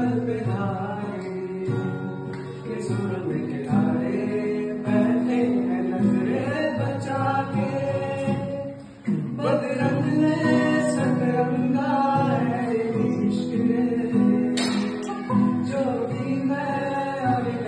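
Two men singing a Hindi love song together, accompanied by an acoustic guitar. The singing and playing dip briefly about halfway through, then carry on.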